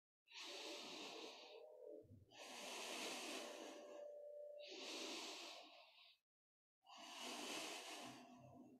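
A person breathing slowly and deeply in and out while holding a yoga pose: about five soft, airy breaths, each lasting one to two seconds, with short pauses between them.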